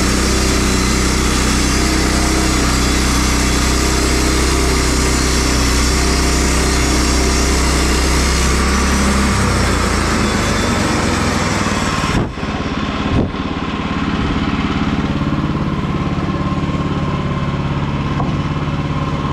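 Woodland Mills HM122 bandsaw mill's engine running under load while the band blade cuts through a log. About twelve seconds in the cutting noise cuts off suddenly with a couple of clicks, and the engine keeps running with less hiss.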